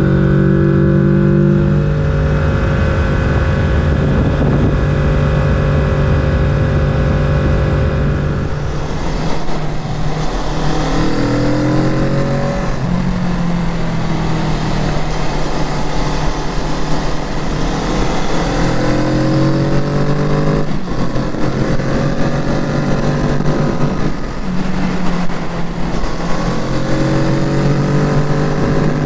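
Kawasaki Z650's parallel-twin engine under way. It holds a steady note for the first several seconds, then rises and falls again and again as the rider accelerates, shifts and rolls off through bends.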